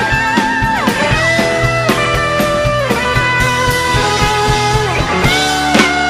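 Band playing an instrumental break: a lead line of sliding, bending notes over guitar, bass and a steady beat.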